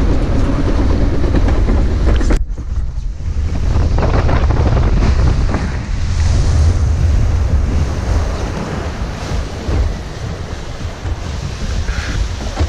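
Log flume boat ride heard from the camera: wind buffeting the microphone over rushing, splashing water, a loud steady rumble. The higher hiss drops away suddenly about two and a half seconds in, then builds again.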